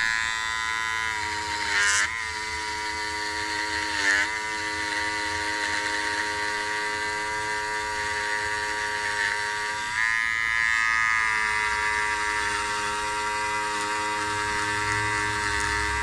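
Custom-assembled cordless hair clipper with a brushless motor, running with a steady hum. Two brief knocks come about two and four seconds in, and the pitch shifts slightly about ten seconds in.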